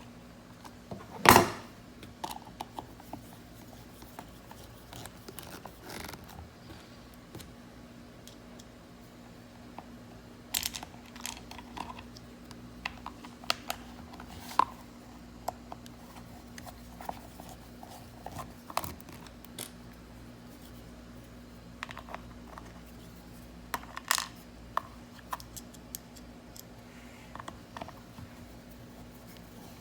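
Scattered clicks and knocks of plastic car armrest parts being handled and fitted back together, with a sharp knock about a second in and another near the end.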